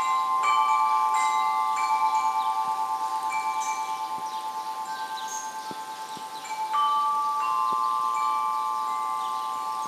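Tubular wind chime ringing as its tubes are struck, several long notes sounding together and wavering as they die away; a fresh, louder strike comes about seven seconds in.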